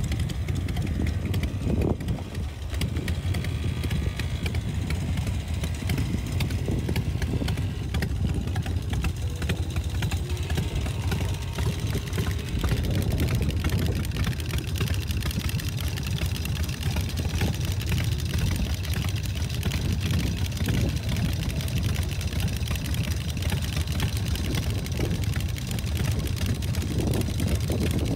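Custom Harley-Davidson V-twin chopper engines idling steadily.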